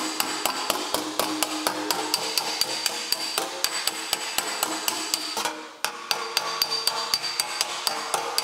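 Hammer on dolly planishing a sheet-metal motorcycle fender: quick light blows, about four or five a second, each with a metallic ring. The blows are glanced lightly off the panel to smooth out dent wrinkles without stretching the metal. They pause briefly about five and a half seconds in.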